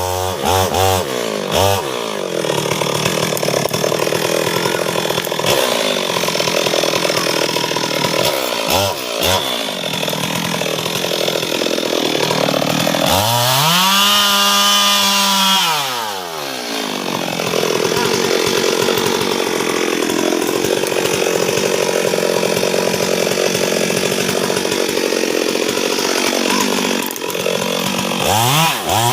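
Stihl MS 382 two-stroke chainsaw cutting through a tree trunk, its engine held down under load for long stretches. Around the middle it revs up freely, holds high for a couple of seconds and drops back into the cut.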